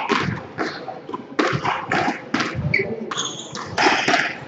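Squash rally: a string of sharp hits as the ball is struck by rackets and bounces off the court walls, with short squeaks of shoes on the wooden court floor.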